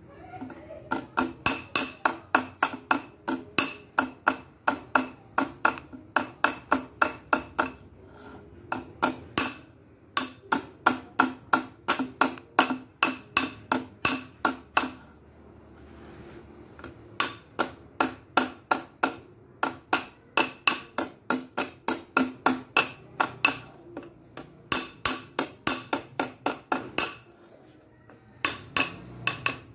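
Ringing metal-on-metal tapping: a hammer striking the head of a second hammer whose claw is set against the bent crimp tabs on a truck radiator's header plate, straightening them. About three to four taps a second, in runs broken by a few short pauses.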